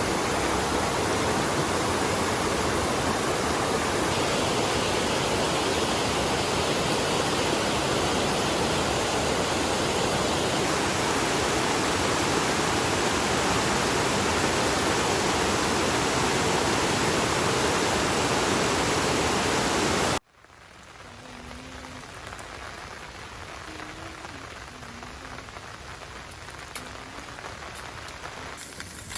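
Steady, loud rain with no distinct individual drops; about twenty seconds in it cuts off abruptly to much quieter, lighter rain.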